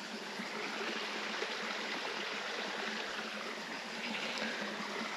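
Steady rushing and trickling of a woodland stream.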